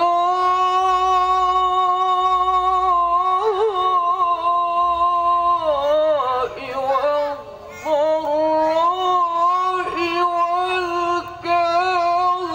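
A man reciting the Qur'an in the melodic tilawah style into a handheld microphone, holding one long high note for about five seconds, then winding through quick ornamented turns, a short breath, and another long held note.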